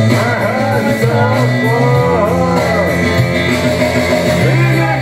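Karaoke: singing through a handheld microphone over a loud backing track with a steady bass line.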